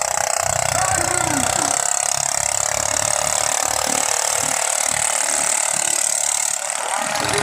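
Ketinting longtail boat engines running in a race, a steady loud mechanical din that dips briefly near the end.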